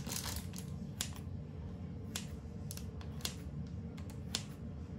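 Kitchen scissors snipping slashes into the top of proofed whole-wheat bread dough, a sharp snip roughly once a second, over a low steady hum.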